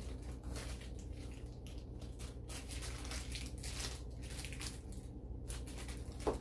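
Packaging being handled and opened: faint, irregular rustling and crinkling, over a steady low hum.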